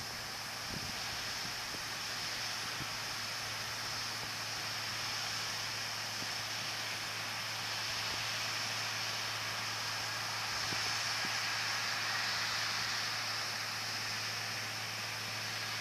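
Steady whooshing drone of a John Deere round-module cotton picker running as it harvests, heard at a distance, with a constant low hum beneath it.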